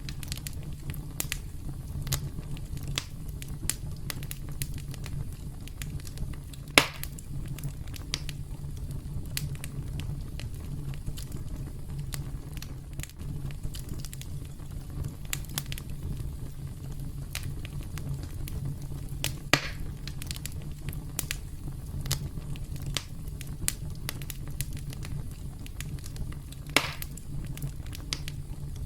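Campfire burning with a steady low rumble and constant irregular crackling. Three louder pops stand out, about seven seconds in, near two-thirds of the way, and near the end.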